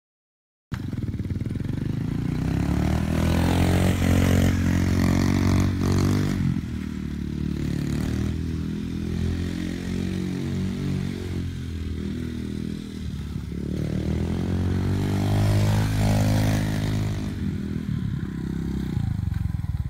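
Honda XR70's small four-stroke single-cylinder engine running as the bike is ridden, starting about a second in, revving up in pitch twice with steadier, lower running between and near the end.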